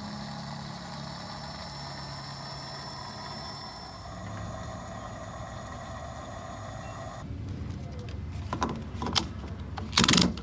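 Gas station fuel dispenser running as gasoline flows through the nozzle into the car's filler neck: a steady hum with a faint whine that cuts off about seven seconds in. Then come clicks and a couple of loud, sharp clatters as the fuel cap is handled and screwed back on.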